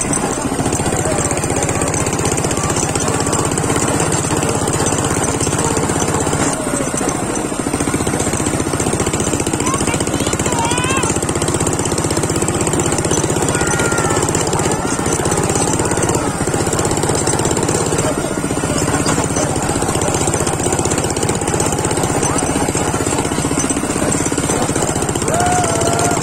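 Small ATV (quad bike) engine running steadily while the quad is ridden along, heard close up from the handlebars.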